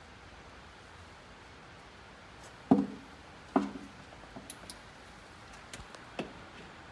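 Two sharp metal clunks about a second apart, each with a short ring, then a few light clicks, from hand tools such as an oil filter wrench knocking on metal parts.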